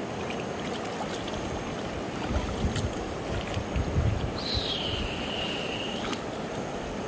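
Shallow river water running and sloshing around hands and legs wading among grass stems, with a few light clicks and low bumps. Around the middle, a high whistle-like tone falls and then holds for about a second and a half.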